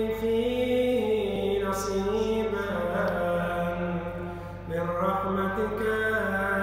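A man chanting an Arabic Ramadan supplication in slow, melodic recitation, drawing out long held notes. His voice drops away briefly about four and a half seconds in before the next phrase begins.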